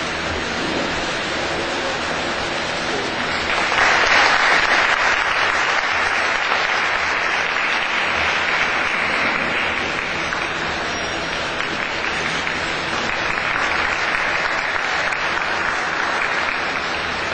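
Audience applauding, swelling up about three and a half seconds in and carrying on steadily.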